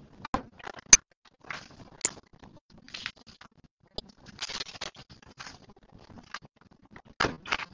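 Irregular scratching and rustling with sharp clicks close to the microphone: a sharp click about a second in, and a cluster of louder scrapes near the end.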